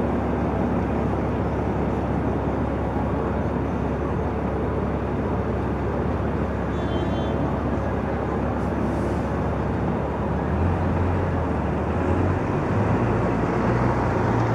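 Steady city street traffic rumble. About ten seconds in, a deeper engine hum from a large vehicle grows louder, and a brief high-pitched beep sounds around seven seconds in.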